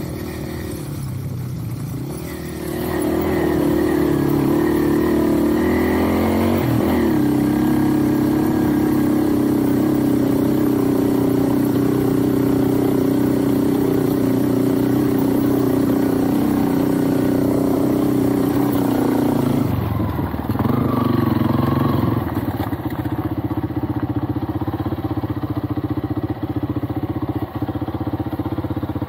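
Small motorcycle engine running under way. The note rises about two seconds in and holds steady, dips and recovers briefly near seven seconds, then changes again around twenty seconds and runs on at a lower, more uneven note.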